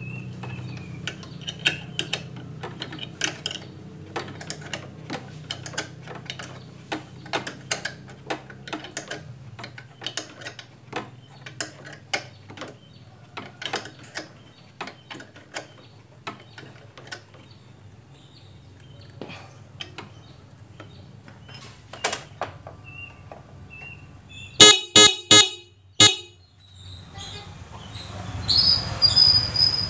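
Clicks and knocks of hand work on the scooter, then about 25 s in a newly fitted horn on a Honda Scoopy scooter sounds three short, loud beeps in quick succession as it is tested.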